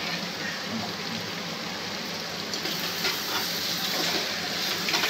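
Julienned potato, carrot and onion sizzling in oil in a metal pan on a gas stove as chopped green chillies are pushed in off a wooden cutting board. The sizzle is steady, with a few light clicks from the stirring spoon against the pan.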